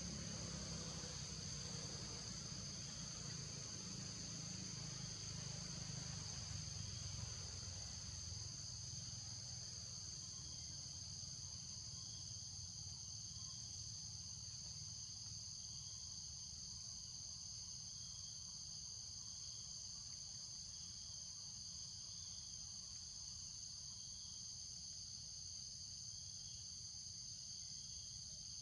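Insects droning steadily in the forest, a continuous high shrill with a softer pulsing chirp about once a second underneath. A faint low rumble eases off after several seconds.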